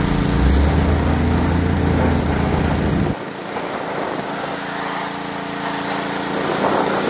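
An engine running steadily with a low hum, which cuts off abruptly about three seconds in, leaving a steady mechanical noise without the hum.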